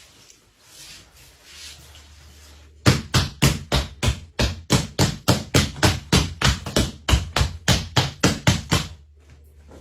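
Rapid, even hammer blows on wood, about four a second, starting about three seconds in and stopping shortly before the end.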